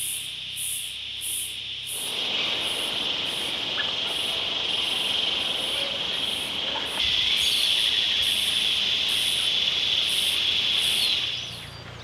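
Insect chorus: a steady high buzz with a higher chirp pulsing about twice a second, and a few faint bird calls. The buzz grows louder about two seconds in and again about seven seconds in, then drops away near the end.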